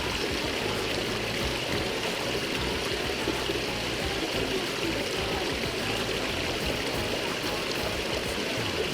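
Snowmelt mountain stream running steadily, a continuous rush of water over rocks.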